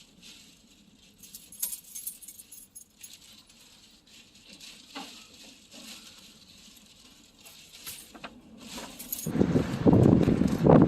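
Faint scattered clicks and rustles, then about nine seconds in a strong gust of wind hits the microphone with a loud, low buffeting that keeps going.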